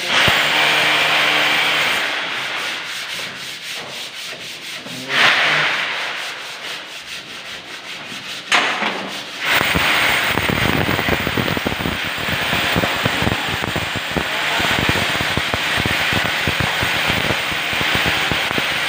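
Rough scraping, rasping noise, fainter in the middle with two short louder bursts, then louder and denser from about ten seconds in.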